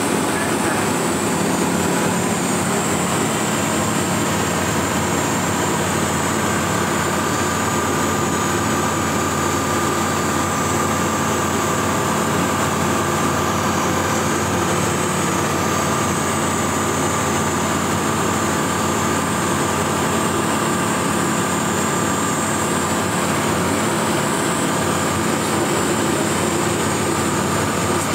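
Dynamic WT9 ultralight's engine and propeller droning steadily in flight, heard from inside the closed cockpit, with wind noise over the canopy.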